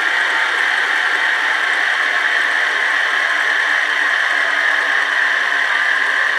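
ESU LokSound V4 sound decoder in an HO-scale 113 series train model playing recorded 113 series electric train sound through its small 28 mm speaker: a steady, even mechanical noise that does not change.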